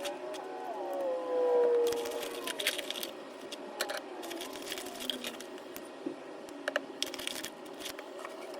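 Paper and craft materials being handled for junk journaling: scattered rustles and light clicks and taps. Under them runs a pitched background tone that wavers and slides down in pitch, loudest between about one and two and a half seconds in.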